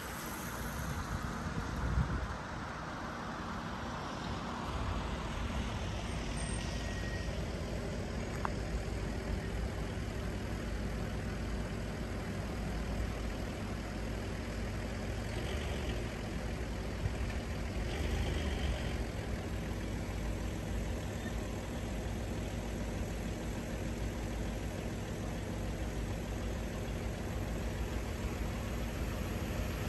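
A truck's engine idling, a steady low rumble.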